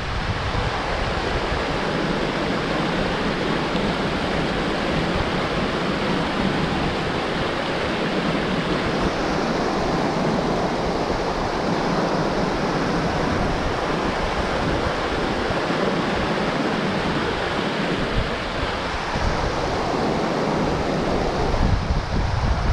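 Small mountain-stream cascade rushing steadily over rocks, with wind buffeting the microphone, strongest near the start and again near the end.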